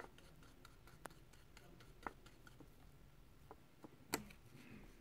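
Near silence with a few faint, scattered clicks and taps from a paintbrush and a plastic palette lid being handled, one sharper tap about four seconds in as the lid is put down.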